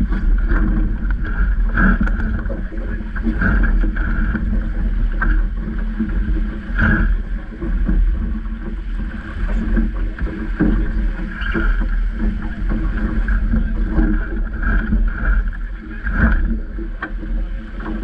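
Water rushing and splashing along the hull of a Vaucluse Junior sailing dinghy under spinnaker, with a heavy low buffeting of wind on the microphone and a few sharp knocks and slaps.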